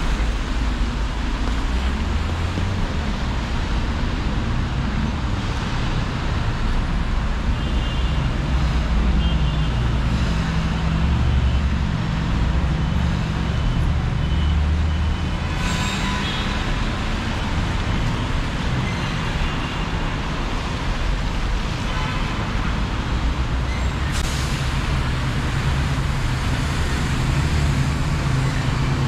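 City street traffic: a steady low rumble of passing motor vehicles and engines. Two short hisses break through it, one about halfway through and one a few seconds later.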